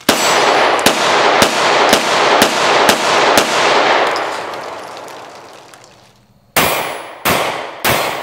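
Kahr PM9 9mm pistol firing: seven quick shots in about three and a half seconds, the echo dying away slowly after the last. After a pause come three more shots about two-thirds of a second apart.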